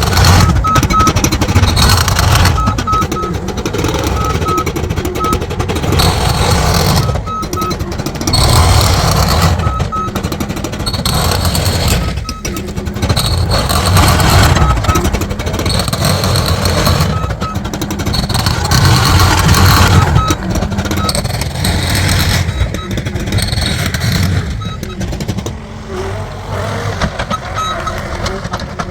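Heavy construction machinery running loudly, its rumble rising and falling, with short high beeps from a backup alarm repeating through it.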